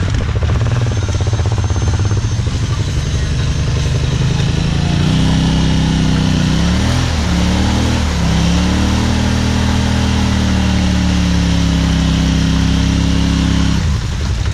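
Yamaha Wolverine X4 side-by-side's engine running under load while stuck in deep mud: its revs climb about five seconds in, dip and recover a couple of times, hold high, then drop back near the end.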